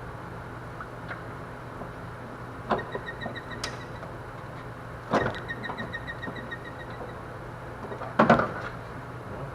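Hand tools working on an engine: three sharp metal clanks, the last the loudest, the first two each followed by a run of rapid, evenly spaced clicking, several clicks a second, over a steady low hum.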